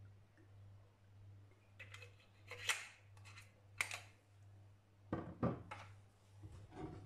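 An oil bottle being handled: a few sharp clicks and scrapes as its cap is closed, then dull knocks as the bottle is set down on the stone counter, over a steady low hum.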